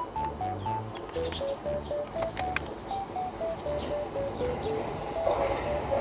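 Cicadas buzzing in a high, steady drone that grows louder about two seconds in, under a background-music tune of short, evenly paced notes over a bass line.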